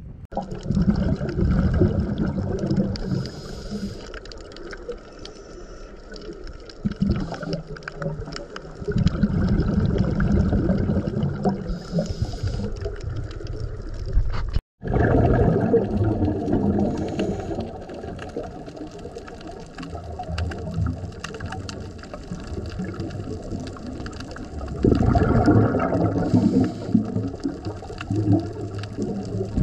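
Scuba diver's regulator breathing heard underwater through a camera housing: long bursts of exhaust bubbles every several seconds, with duller water noise between. The sound cuts out for a moment about halfway through.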